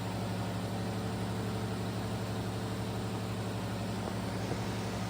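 Outdoor heat pump unit running with a steady low hum.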